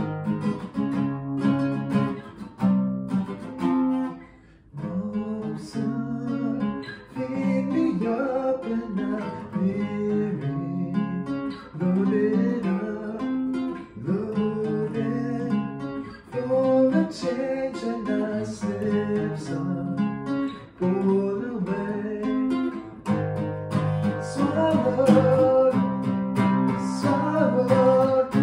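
Acoustic guitar strumming and picking chords in a rock song.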